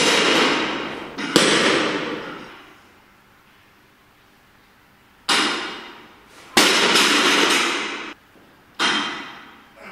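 A series of thunderclaps, five sharp cracks that each rumble away over a second or so, with a faint hiss between them.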